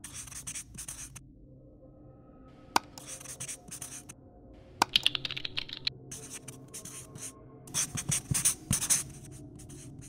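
Marker pen writing on a whiteboard: a run of short scratchy strokes with a squeaky stretch about five seconds in, and two sharp clicks along the way.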